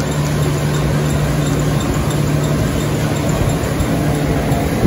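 Matrix treadmill's motor and belt running at a slow walking speed just after start-up: a steady low hum over an even whir.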